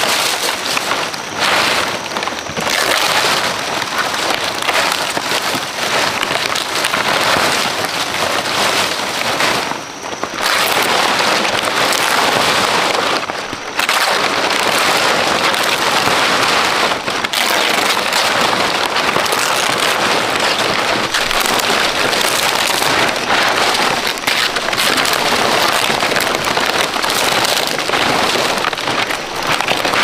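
Large fresh fan palm leaves rustling as they are handled, bent, split and pressed flat by hand: a dense, continuous rustle that eases briefly about ten and thirteen seconds in.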